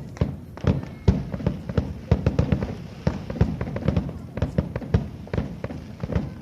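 Aerial fireworks shells bursting in quick, irregular succession, several booms a second, with a dense cluster of reports a little after two seconds in.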